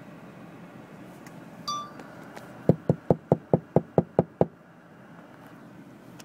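A quick run of about nine sharp knocks, roughly five a second, on something hard.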